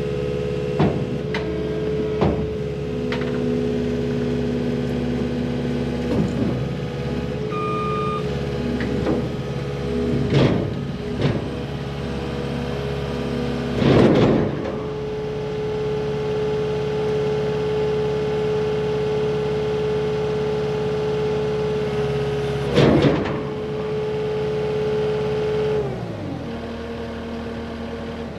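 Cat 289D3 compact track loader's diesel engine running steadily at working speed, with several loud clanks and knocks from the machine, two heavier than the rest. Near the end the engine speed falls off as the throttle comes down.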